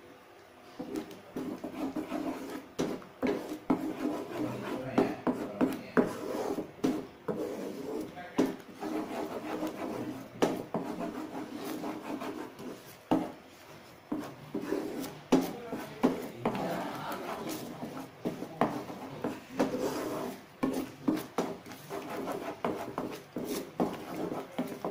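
A spatula stirring and scraping in a pan of sauce that is coming to a simmer, with irregular scrapes and clicks.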